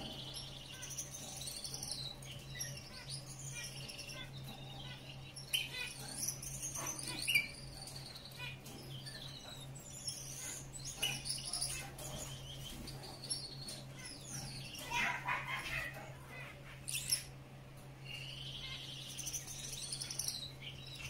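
Gouldian finch singing: a string of short, high, squeaky chirps and twittering notes, over a steady low hum.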